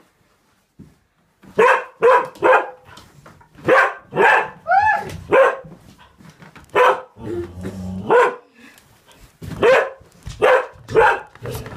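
Dog barking angrily: about a dozen short, sharp barks in uneven runs, with a lower rumbling stretch around the middle.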